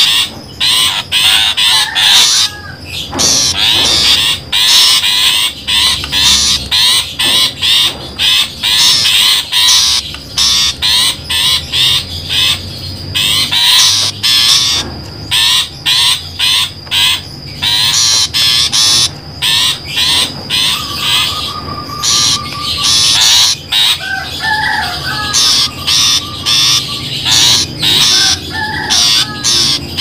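Long-tailed shrike (pentet) calls played as a bird-trapping lure recording: a dense, loud run of rapid, choppy, scratchy calls broken by very short gaps, with a few lower warbled phrases in the last third.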